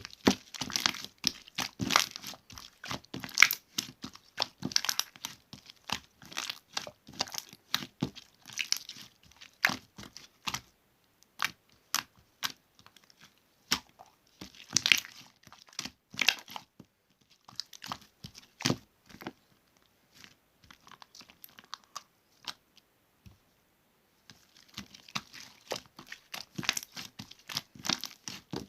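Slime being squished, folded and stretched by hand, giving a fast, irregular run of sharp pops and crackles. The pops thin out to a few scattered ones a little past halfway and come thick again near the end.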